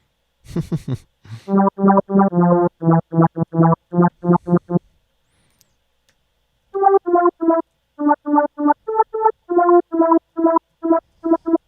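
Image-Line Harmor software synthesizer playing a resonant square-wave lead: a pattern of short, clipped notes at about three to four a second. A short noisy burst comes about half a second in; the notes stop for about two seconds midway, then resume, the second run higher-pitched.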